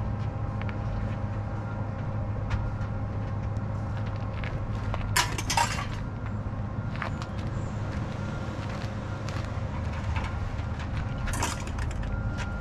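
A steady low engine drone runs throughout, with a cluster of short knocks and clatters about five seconds in and another near the end as items are handled in a pickup truck's storage box.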